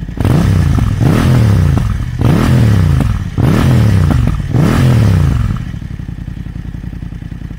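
Motorcycle engine revved through a carbon-fibre Akrapovič aftermarket muffler: about five quick throttle blips, each rising and falling in pitch. For the last two seconds it drops back to a steady idle.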